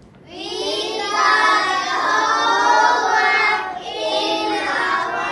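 A group of children's voices reciting in unison in a sing-song choral speaking style, with a brief pause about two-thirds of the way through.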